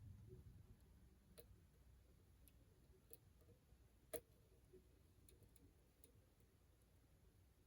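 Faint, scattered clicks of a hook pick working the pins inside an ASSA 700 lock during picking, with one sharper click about four seconds in.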